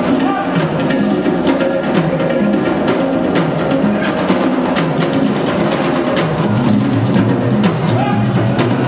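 Drum-driven music: quick, dense drum and percussion hits over a low instrumental line.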